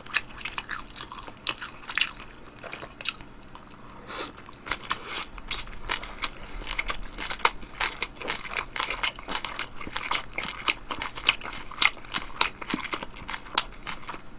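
Close-miked chewing of a mouthful of battered fried pork with kimchi, with many small, irregular crisp crunches and wet mouth sounds.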